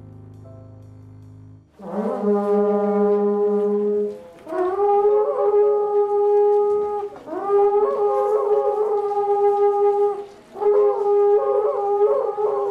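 Horagai (conch-shell trumpet) blown in four long blasts, each opening with a wavering break in pitch before settling into a steady held note. Soft keyboard music plays for the first couple of seconds, before the first blast.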